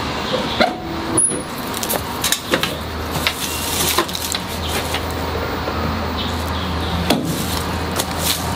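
Scattered light knocks and clicks of hands working on the bare metal body and rear doors of a stripped-out van, over a steady low hum that grows stronger about halfway through.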